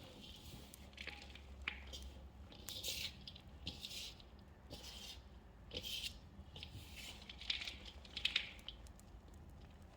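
Hands squishing and crushing small pieces of gym chalk in a wet, soapy paste: irregular short squelches and crunches.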